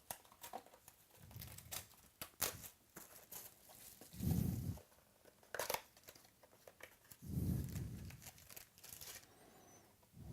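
Card pack foil wrappers being torn open and crinkled, with cards shuffled in hand, as sharp crackles and rustles. A few low, muffled thuds of handling come in between, the loudest about four seconds in.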